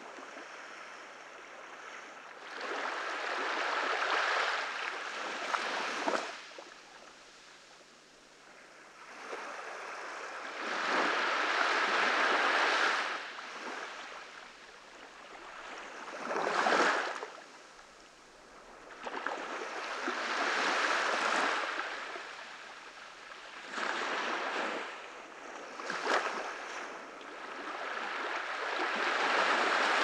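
Small ocean waves breaking and washing up a sandy beach. The surf swells and fades every few seconds.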